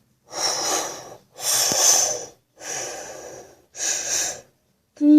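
Four breathy, rasping vocal bursts, each just under a second long and evenly spaced, with no clear pitch.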